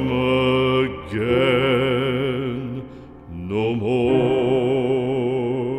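Background song: a solo voice sings three long, held notes with vibrato, with short breaks between them.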